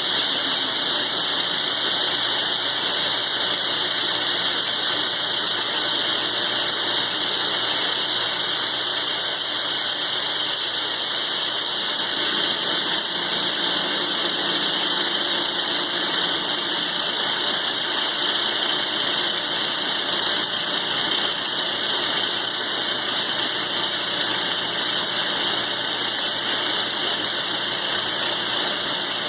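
Milling machine taking a slow cut in thick steel with a roughing end mill, a steady grinding, hissing machining noise; a thin high squeal rises out of it for a few seconds about a third of the way in.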